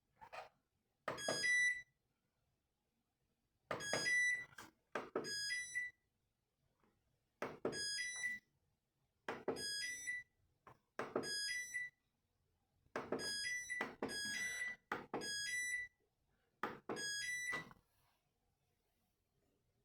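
Valberg WF 612 washing machine control panel: a click and a short electronic beep at each step as it is set through its programmes, repeated about a dozen times at uneven intervals.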